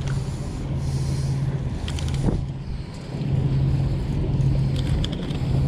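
A steady low engine hum, a deep droning tone that holds through the whole stretch.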